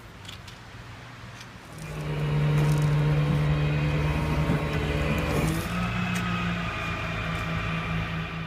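Faint outdoor noise, then from about two seconds in a flatbed tow truck running its engine and bed hydraulics: a loud, steady mechanical hum that becomes an even pulsing near the end.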